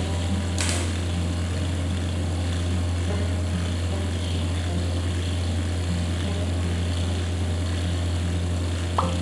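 Small electric motor or air pump running with a steady low hum, with a brief click near the end.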